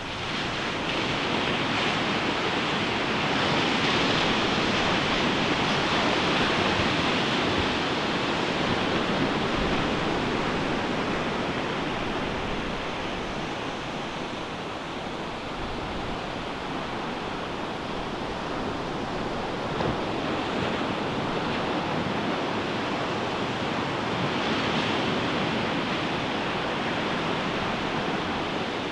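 Ocean surf breaking and washing up a beach, a steady rush that swells louder in the first several seconds and again near the end.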